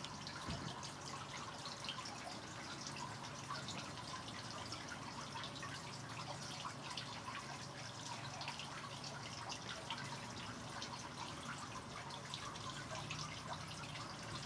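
Water dripping: many light, irregular ticks over a faint steady low hum.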